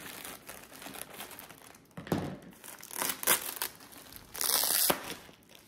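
Clear plastic wrapping crinkling as it is pulled and torn off a roll of fabric, with several louder rips, the longest about four and a half seconds in.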